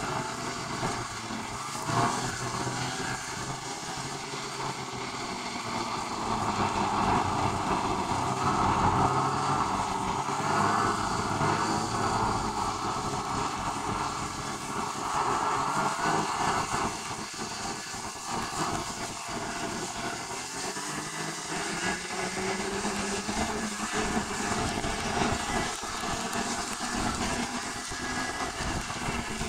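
A vehicle running with steady noise. A low hum rises slowly in pitch over the last several seconds.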